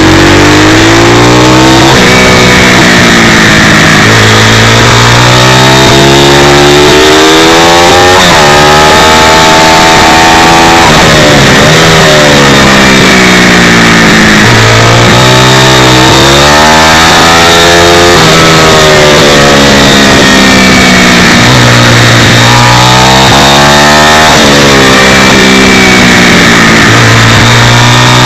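Pit bike engine at racing speed, heard from on board: it revs up in rising runs, drops sharply and winds up again over and over as the bike accelerates out of corners and backs off into the next. Very loud throughout.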